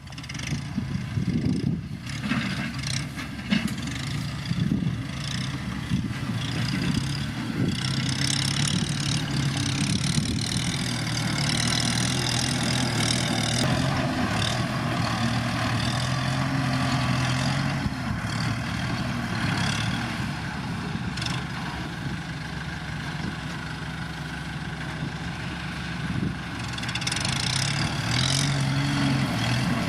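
Kubota M7040 tractor's diesel engine running steadily as it works dirt, its engine note shifting a few times.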